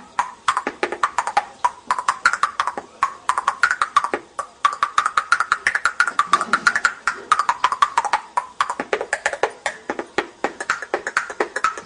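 A child's teeth clicking together in a fast rhythmic beatbox pattern, several clicks a second, the pitch of the clicks sliding up and down as the mouth changes shape.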